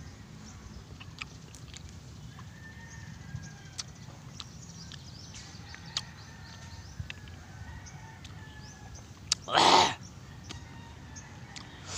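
Mouth and eating noises from a man eating calamansi with chili: faint scattered mouth clicks, then one loud sharp breath about nine and a half seconds in, a reaction to the chili's heat. Faint bird calls sound in the background.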